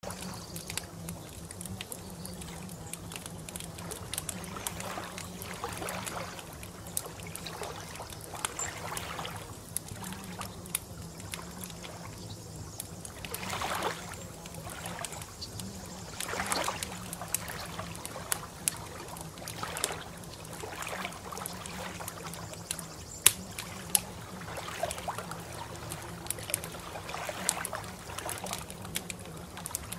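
Water trickling and sloshing, swelling and easing every few seconds, with small sharp clicks and splashes over a low steady hum.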